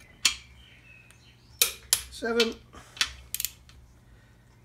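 Sharp metallic clicks and knocks of a torque wrench ratchet and socket on the main bearing cap bolts of a 2.4 TDCi diesel block as they are tightened to 80 Nm, with a double click a little after three seconds in and a short pitched sound about two seconds in.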